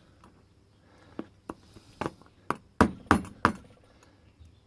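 A series of light, sharp taps, about seven, on the wafers of a Whitco cylinder 4 lock plug as they are tapped down into their slots because they won't snap in by finger. The taps come loudest in a quick cluster past the middle.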